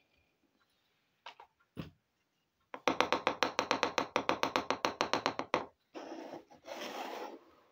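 A small plastic toy pot and its lid clicking rapidly in the hand, about eight sharp clicks a second for nearly three seconds. It is followed by a soft rubbing and scraping of the pot against the tabletop.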